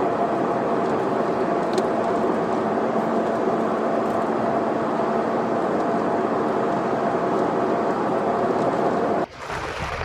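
Steady road and engine noise of a car cruising at highway speed, heard from inside the cabin. About nine seconds in it drops abruptly quieter.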